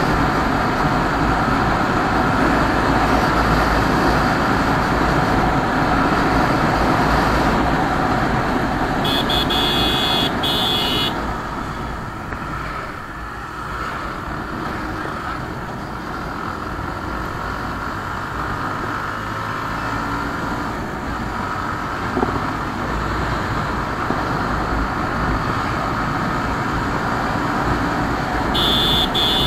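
Bajaj Pulsar motorcycle riding at speed: engine and heavy wind rush on the handlebar-mounted camera. The sound eases off in the middle as the bike slows, and a vehicle horn sounds twice, for about two seconds each, around nine seconds in and near the end.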